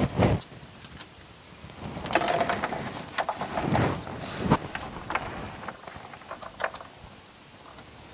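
Hands working in a diesel engine bay with the engine off: irregular rustling and scraping as a wiring harness and plastic connectors are handled and pushed past hoses, with a few sharp clicks and knocks.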